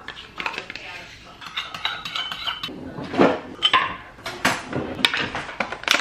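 Metal spoon scraping and clinking against a plastic yogurt cup and a ceramic bowl as yogurt is spooned out. Dishes are handled, with a series of sharp clinks and knocks that come thicker in the second half.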